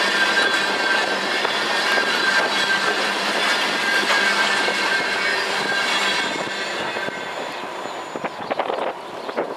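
Norfolk Southern freight train's cars rolling past on the rails, steel wheels rumbling with a thin, steady squeal on top. The sound fades away over the last few seconds, with a few sharp clacks near the end.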